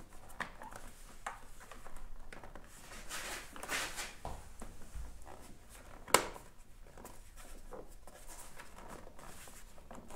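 Plastic handlebar cover on a Kymco X Town 300i scooter being handled and pressed into place: faint rustling and scraping of the panels, with one sharp snap about six seconds in as a clip seats.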